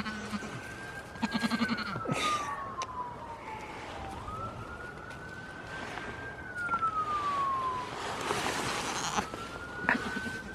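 Emergency vehicle siren wailing three times, each call rising quickly, holding, then sliding slowly down, about four to five seconds apart.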